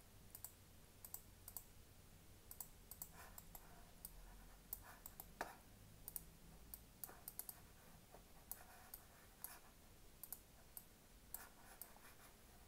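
Faint, irregular clicking of a computer mouse, in short clusters of clicks with pauses between them.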